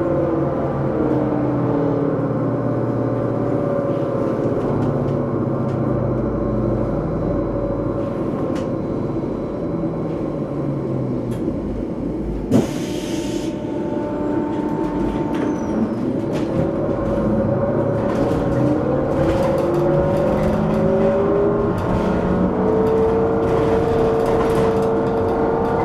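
Electric trolley bus running, heard from inside: the traction drive's whine falls in pitch as it slows early on, holds, then rises again as it speeds up near the end, over steady road rumble. About halfway through there is a single sharp knock followed by a brief hiss.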